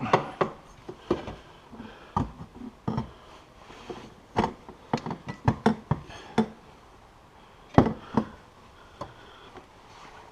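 Irregularly spaced sharp clicks, clinks and knocks of metal exhaust parts and hand tools being handled during snowmobile muffler installation.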